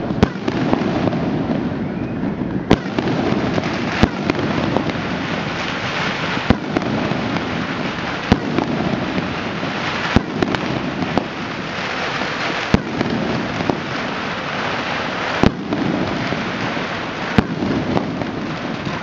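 Fireworks and firecrackers going off: a continuous crackling din with sharper single bangs every second or two.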